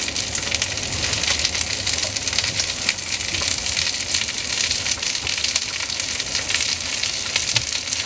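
Cooking oil sizzling steadily as flatbreads pan-fry, with many small crackles and pops through the hiss.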